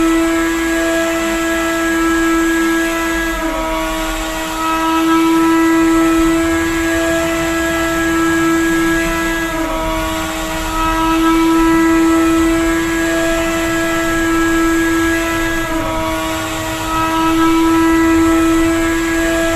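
Drone flying, its propellers giving a steady buzzing whine. The pitch dips briefly three times, and the loudness slowly swells and eases.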